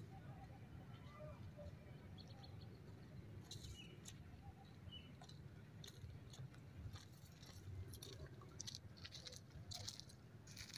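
Near silence: faint outdoor background with scattered soft clicks and a few brief, faint high chirps.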